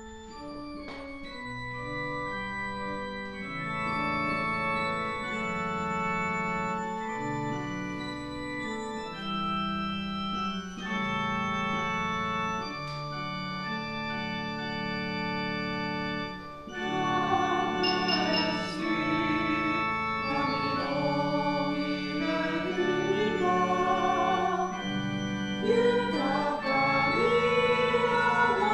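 Organ playing a hymn introduction in held chords. About seventeen seconds in, voices join and sing along with the organ.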